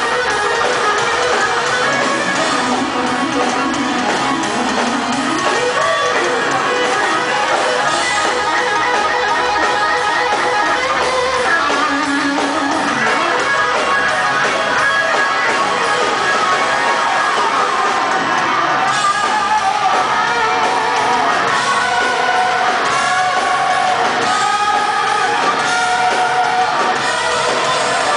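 Live rock band playing loudly, with electric guitar to the fore.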